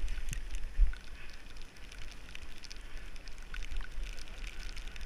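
Riding a bicycle on a rain-soaked road: wind rumbling on the bike-mounted camera's microphone, with a stronger gust under a second in, over the hiss of tyres on wet asphalt and scattered small ticks.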